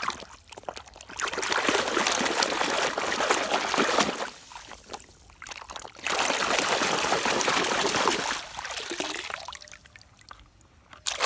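Water pouring and splashing over a muddy toy vehicle as it is washed, in two long spells with quieter trickling between.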